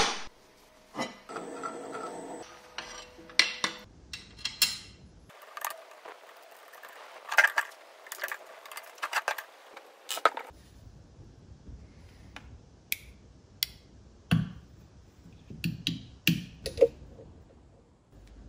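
Stainless steel plate and small metal fittings being handled and fitted: a series of separate metallic clinks, knocks and rattles with quiet gaps between them, with a short buzzing stretch early on.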